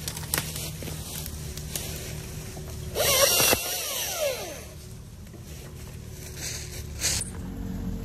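Gas chainsaw idling, with a short burst of cutting about three seconds in, after which the engine winds back down to idle as the cut wood falls.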